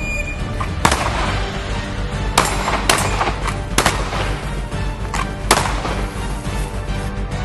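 Pistol shots fired at uneven intervals, about half a dozen sharp cracks during a shooting-on-the-move drill. Background music plays under them.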